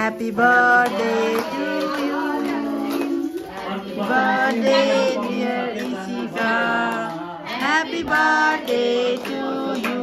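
Music with singing voices, a song carried over the whole stretch.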